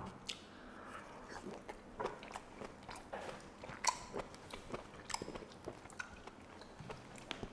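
A man chewing a mouthful of lobster meat: soft, wet mouth clicks and smacks at irregular intervals.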